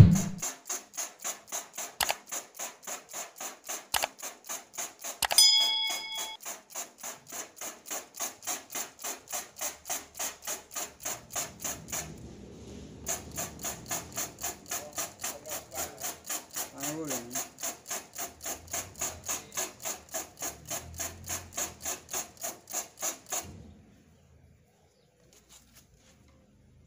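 Trigger spray bottle squirting water at a screen-printing screen in rapid, evenly spaced spritzes, washing out the unexposed emulsion to develop the stencil. The spraying pauses briefly about halfway and stops a few seconds before the end. A thump comes right at the start and a short squeak about five seconds in.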